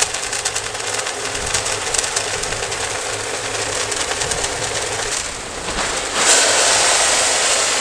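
Prilled lime pellets pouring from a bulk bag into the plastic hopper of a fertilizer spreader: a dense hiss of tiny pellet ticks that grows louder and fuller about six seconds in.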